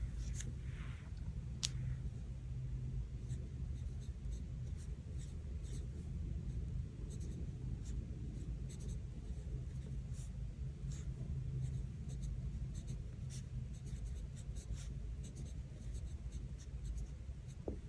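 A pen writing on a Hobonichi Cousin planner page: quiet scratching strokes with scattered small ticks, over a faint steady low hum.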